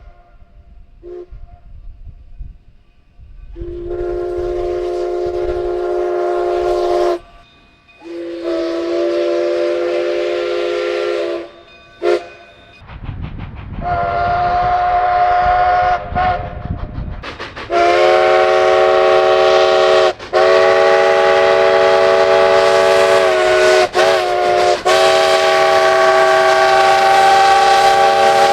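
A locomotive sounds its multi-note chime: a chord of several steady tones. It gives a brief toot, then three long blasts a second or two apart, then a longer blast near the end, broken twice by short gaps. A low rumble runs under the third blast.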